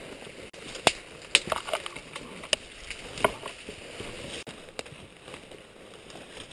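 Leafy branches brushing and scraping past while pushing through dense brush on foot, with several sharp snaps and cracks; the loudest come in the first second and a half.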